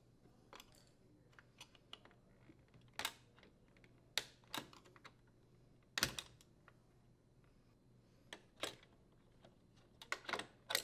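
Irregular sharp metal clicks and taps from an awl and flathead screwdriver prying the retainer off a dishwasher door hinge's mounting pin and working the old hinge free, about a dozen in all and more closely bunched near the end.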